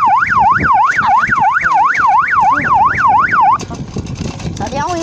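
Add-on electronic police-style siren on an electric bicycle, set to a fast yelp: a loud tone sweeping up and down about three times a second. It cuts off suddenly about three and a half seconds in.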